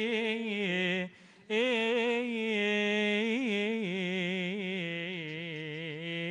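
A single man's voice chanting a melismatic Coptic liturgical chant, holding long, ornamented notes with small pitch turns. It breaks off for a short breath about a second in.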